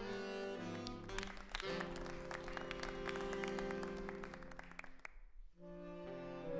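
Saxophone quartet of alto, two tenor and baritone saxophones playing sustained chords. From about a second in, a rapid run of short, sharp attacks sounds over a long held chord; the sound thins out briefly about five seconds in before a new chord enters.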